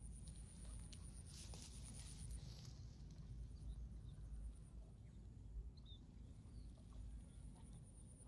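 Quiet field ambience: a steady, high, pulsing insect trill that stops about two seconds in and comes back near the end, over a low wind rumble. A few faint clicks fall in the first two seconds.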